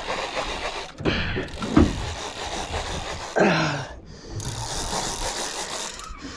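Fishing reel being cranked, a steady mechanical ratcheting whir, with a couple of short vocal sounds about two and three and a half seconds in.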